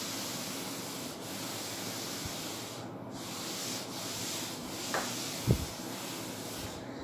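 Blackboard duster rubbing across a chalkboard, erasing chalk in continuous scrubbing strokes. There is a short pause about three seconds in and a low knock about five and a half seconds in.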